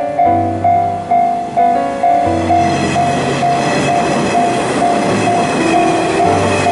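Japanese level-crossing alarm bell ringing at about two strikes a second as a Nishitetsu 3000-series electric train runs over the crossing. The train's running noise swells about two seconds in.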